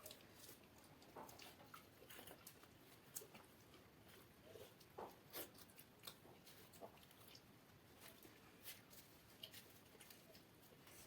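Faint eating sounds: a person chewing, with scattered soft clicks and smacks at irregular intervals over very quiet room tone.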